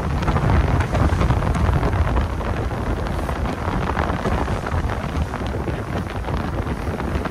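Wind buffeting the microphone on a boat at sea: a dense, uneven low rumble with scattered small clicks.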